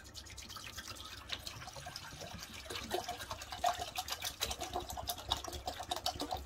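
Water being poured from a bottle into a glass pot: irregular splashing and gurgling that gets busier about three seconds in.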